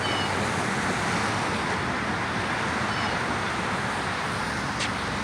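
Steady outdoor background noise with no distinct events, like distant road traffic. There are a couple of faint, brief high tones.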